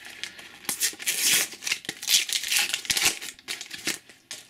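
A paper sticker packet being torn open and its wrapper crinkled and rustled as the stickers are pulled out, lasting about three seconds.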